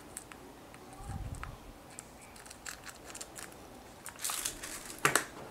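Small clear plastic compartment box being handled while a split ring is picked out of it: light scattered clicks and rattles of plastic and small metal parts, a louder rustle about four seconds in and a sharp click near the end.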